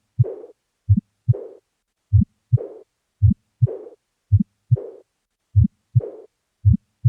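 Heart sounds from chest auscultation at a slow, regular rate of about one beat a second. Each beat is a paired lub-dub, and a soft blowing murmur begins at the second sound and fades away: a decrescendo diastolic murmur, typical of aortic regurgitation.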